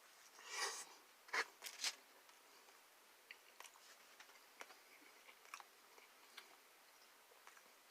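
A person biting into and chewing pepperoni pizza: a soft rustling swell and a few crisp crunches in the first two seconds, then faint, scattered chewing clicks.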